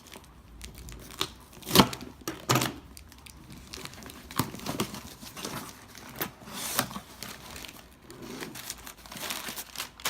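Packaging being torn open and crinkled by hand: irregular rustling and crackling with sharp snaps, the loudest a little under two seconds in.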